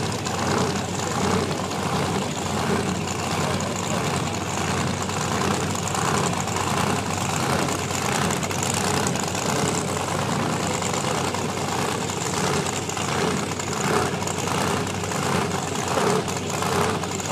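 Drag race car engines idling at the starting line, a steady low running sound that pulses about twice a second.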